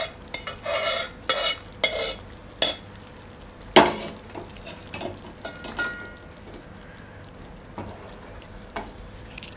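Steel spoon scraping ghee-fried dry fruits out of a small steel pan into a pot of payasam: a run of quick scrapes, then one sharp clank about four seconds in. After that the spoon stirs the milky payasam with soft, scattered clinks against the steel pot.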